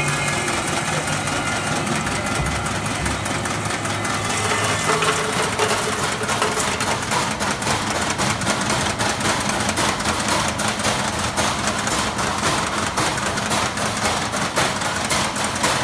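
Rubber deflashing machine running: a steady mechanical hum under a dense rattle of rubber parts dropping from the discharge chute onto the mesh tray. The clicking grows busier about six seconds in.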